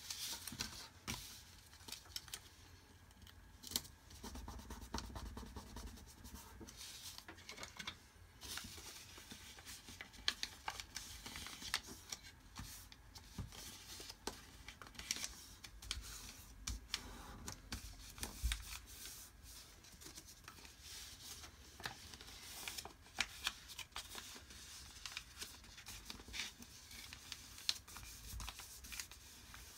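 Sheet of paper being folded by hand, its creases pressed flat: irregular rustling with many short sharp crackles and taps.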